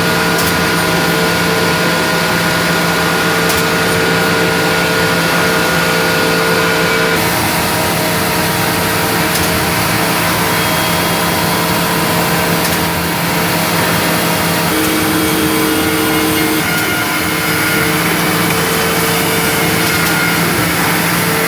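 NB8PCHG automatic edgebanding machine running: a steady motor hum with several held tones over a constant noisy background. About seven seconds in, one high tone stops and the mix shifts.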